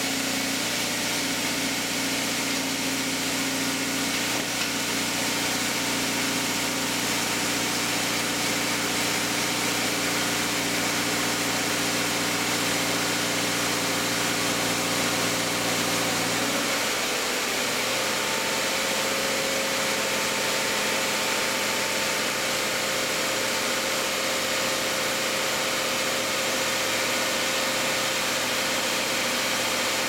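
2021 Subaru Crosstrek's 2.5-litre FB25D flat-four boxer engine at a steady fast idle shortly after a cold start, the engine still cold. About halfway through, the engine note shifts slightly and settles into a new steady hum.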